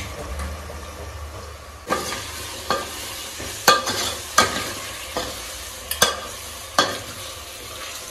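Chicken pieces sizzling in hot oil and masala in an aluminium pot while a steel ladle stirs them, knocking against the pot's side roughly once a second from about two seconds in.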